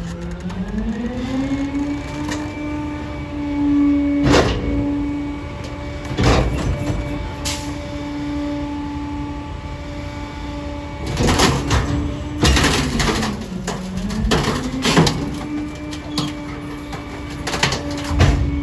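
Rear-loader garbage truck's engine revs up to drive the hydraulic packer and holds there, sagging briefly and picking up again near the end, while bulky items are crushed in the hopper with sharp cracks and bangs at irregular intervals, several in quick succession past the middle.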